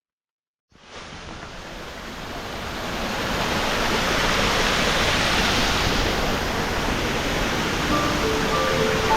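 Steady rushing roar of a waterfall. It fades in out of silence just under a second in and grows louder over the next few seconds. A few music notes come in near the end.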